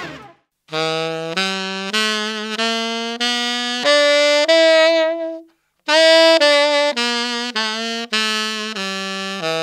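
Tenor saxophone playing the blues scale slowly, one evenly held note at a time: about seven notes stepping up, a short breath about halfway through, then the notes stepping back down.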